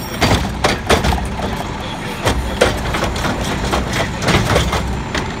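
Curotto-Can automated arm on a Freightliner Condor diesel garbage truck lifting a trash cart and tipping it into the can: a string of sharp knocks and clanks as the cart bumps and the trash drops, over the steady low running of the diesel engine.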